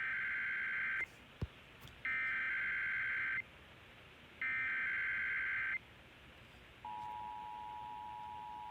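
Emergency Alert System SAME header: three bursts of warbling digital data tones, each over a second long, sent about a second apart. About seven seconds in, the steady two-tone EAS attention signal begins, marking the start of a Required Monthly Test. A brief click falls between the first two bursts.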